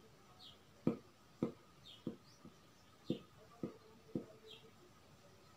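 Marker pen writing on a whiteboard, faint: sharp taps of the tip against the board about every half second, with short high squeaks of the felt tip between them.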